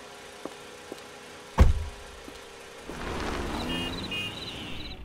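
A car door slams shut about one and a half seconds in, after a few light clicks. Then a car moves off, its noise swelling, with short high chirps near the end.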